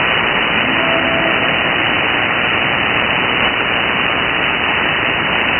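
Shortwave receiver static on 6950 kHz upper sideband: a steady hiss heard through the receiver's narrow sideband filter, with the weak Pee-wee pirate signal mostly buried in it. A few faint short tones come through about a second in.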